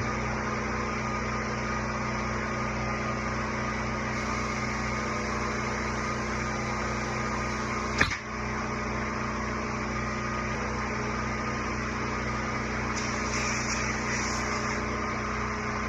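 A steady mechanical hum from a running motor, with one sharp click about halfway through.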